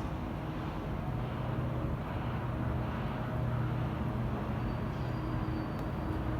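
Diesel train engine running steadily at idle, a constant low hum.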